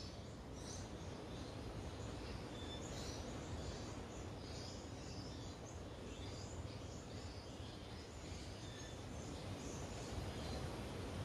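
Outdoor background: wind rumbling on the microphone, with small birds chirping here and there.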